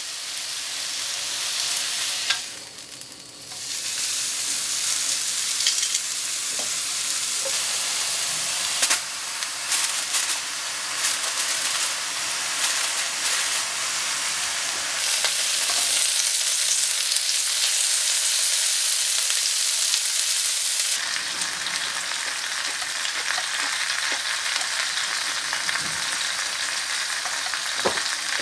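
Food sizzling and crackling in a frying pan, a steady hiss with scattered pops that drops away briefly about three seconds in.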